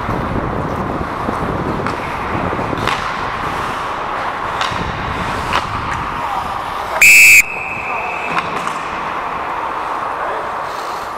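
Referee's pea whistle blown once, a short, very loud blast about seven seconds in that echoes in the arena for about a second: the signal to stop play as the goalie covers the puck. Before it, skates scrape the ice and sticks clack.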